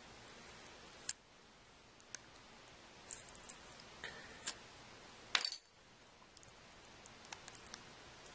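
Scattered small sharp clicks and taps of cracked screen glass being pried off a Samsung Galaxy S3 with a razor blade, the loudest a little past halfway through.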